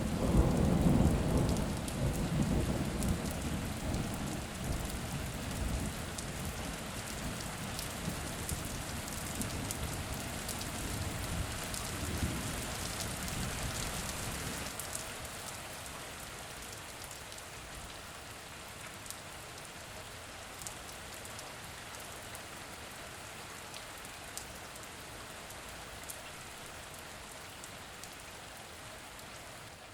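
Steady rain with scattered drips, and a long roll of thunder that breaks in suddenly at the start, rumbles low and loud for several seconds, swells again about twelve seconds in, then dies away, leaving rain alone for the second half.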